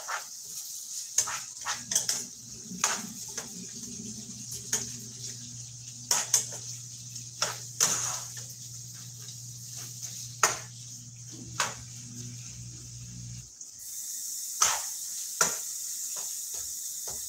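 Ground beef sizzling in a frying pan, with irregular clicks and knocks of a utensil against the pan and the counter. Under it a low steady hum runs until it cuts off suddenly about thirteen seconds in.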